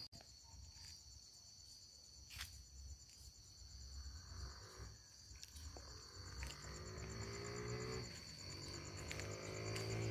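Night insects trilling steadily with a high, unbroken tone. From about six seconds in, a low droning sound with a rising pitch grows louder, drops back about eight seconds in and rises again.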